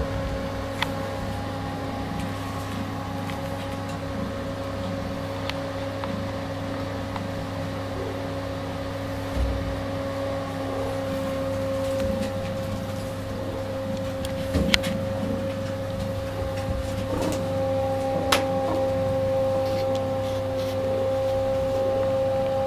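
Steady machine hum holding several fixed pitches, with a few short knocks and clicks here and there.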